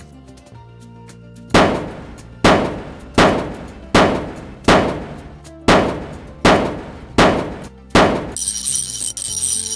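Nine loud, sharp impacts, a little under a second apart, each dying away quickly, followed near the end by a high shimmering ringing.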